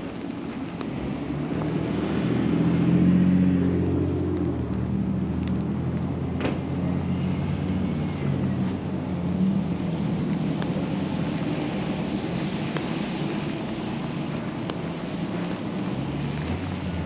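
Street traffic: the low hum of a vehicle engine swells to its loudest about three seconds in, then carries on steadily, with a single sharp click about midway.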